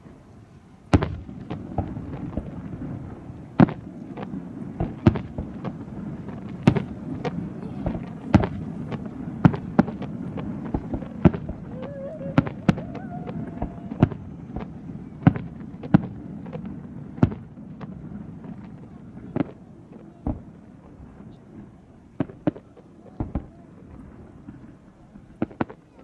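Fireworks display: shells bursting in sharp bangs about once a second, thinning out and growing quieter in the last third.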